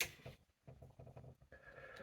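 A light switch clicked off once at the start, then faint small handling sounds in a quiet room.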